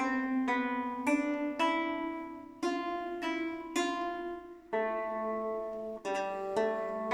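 A plucked string instrument playing a slow tune of single notes and chords, about one or two plucks a second, each note ringing and fading before the next.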